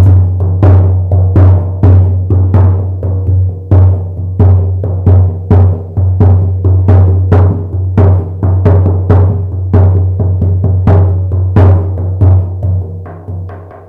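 A 50 cm shaman frame drum struck in a steady rhythm. Each stroke lands with a sharp attack and leaves a deep, ringing boom that carries on between strokes. The strokes ease off a little near the end.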